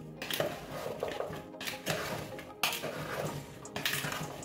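Metal spoon scraping and knocking against a plastic mixing bowl as chopped vegetables, coated in oil and herbs, are stirred and tossed, with a sharp knock every second or so.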